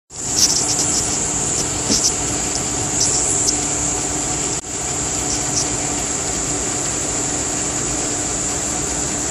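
Insects in the trees making a steady, high-pitched drone over a faint low hum. The whole sound drops out for an instant about halfway through.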